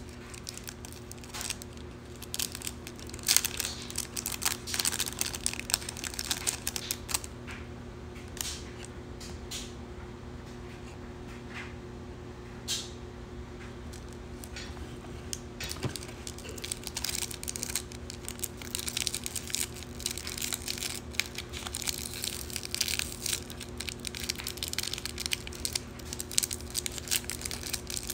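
Clear plastic wrap being peeled and crinkled off small nail-gel jars by hand: irregular crackling, sparse at first and much busier in the second half. A steady low hum runs underneath.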